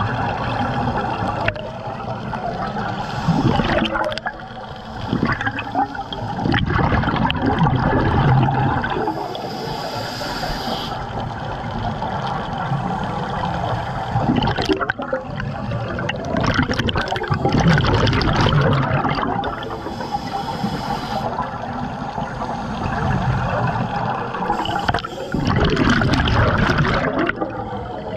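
Scuba regulator breathing heard underwater: repeated loud surges of bubbling and gurgling as exhaust bubbles vent every several seconds, with calmer water noise between.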